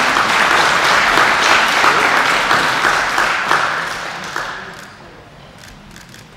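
Audience applauding, dying away about four to five seconds in.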